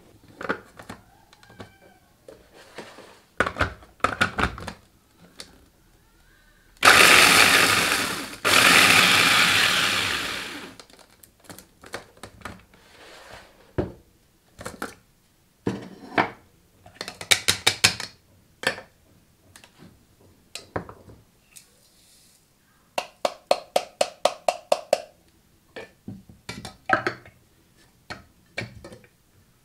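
Mitochiba CH-100 electric food chopper grinding cheese crackers to crumbs, run in two short bursts about seven seconds in, the second winding down as the motor stops. Later come quick runs of sharp clicking taps on the chopper's plastic jar and bowl.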